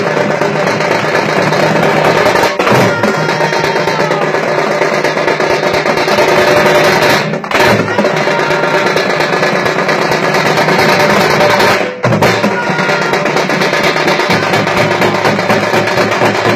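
A group of thamate frame drums beaten loudly and rapidly together, making a dense, continuous din that breaks off for an instant three times.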